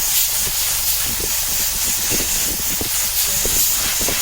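A loud, steady hiss.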